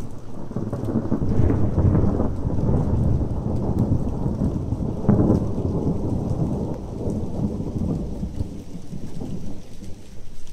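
Long rolling peal of thunder. It builds over the first couple of seconds, has two sharper claps about a second and a half and five seconds in, then rumbles on and dies away near the end. Rain falls steadily underneath.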